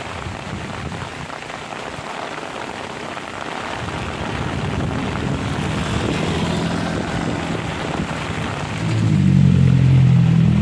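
Heavy rain falling steadily. From about halfway in, a motor vehicle's engine hums in, growing louder and loudest near the end.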